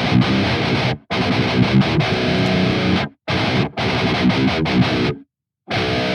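Distorted electric guitar playing a heavy riff, tuned to drop D and pitched down by an effects pedal to sound in drop B. The phrases are cut dead, leaving brief gaps about a second in, around three seconds in and for about half a second near the end.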